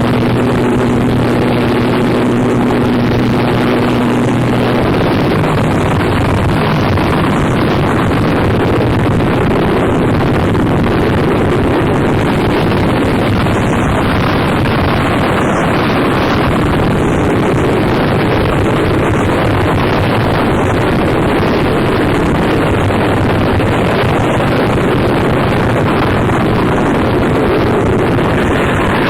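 Harsh noise music played from a cassette: a loud, unbroken wash of distorted noise, with a low steady hum underneath that drops out about five seconds in.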